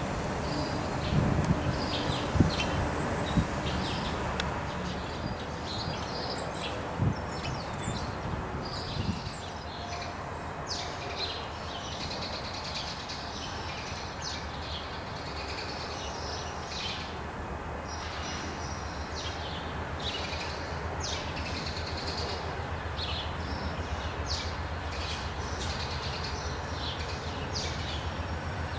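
Small birds chirping again and again over the steady low rumble of a passenger train on the line, the rumble growing slightly toward the end. A few dull low thumps come in the first few seconds.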